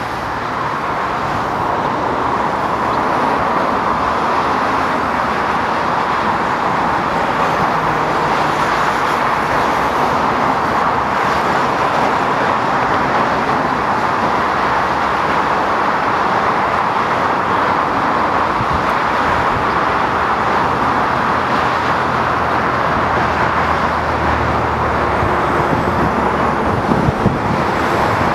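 A pair of EMD GP39-2 diesel-electric locomotives running at low speed, a steady drone of their turbocharged V12 diesel engines. A few sharp knocks come near the end.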